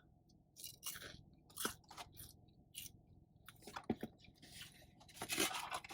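A person chewing food, with irregular crunches and mouth clicks.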